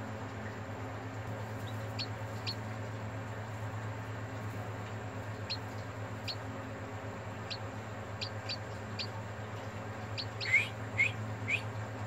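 Newly hatched chicken chicks peeping with short, falling chirps. The peeps come a few at a time at first, then louder and about twice a second near the end, over a steady low hum.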